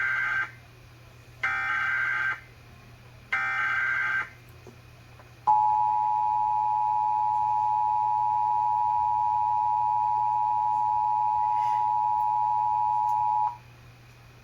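Emergency Alert System test heard over AM radio: three harsh digital header bursts, each just under a second, then the steady two-tone attention signal, held for about eight seconds before it cuts off. A low steady hum runs underneath.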